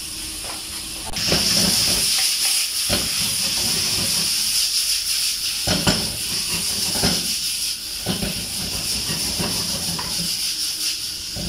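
Chicken livers and onions sizzling loudly in a hot frying pan. The sizzle jumps up suddenly about a second in, as liquid goes into the pan, and then holds steady. A wooden spatula knocks and scrapes against the pan now and then as the food is stirred.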